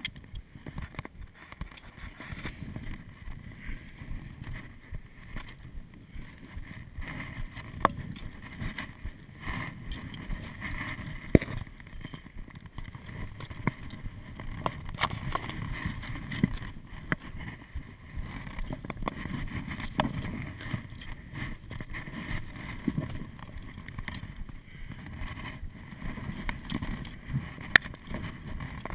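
Climbing boots crunching and scraping step by step on loose volcanic rock and scree, with irregular sharp clicks and knocks of rope and climbing gear, over a low rumble of wind on the microphone.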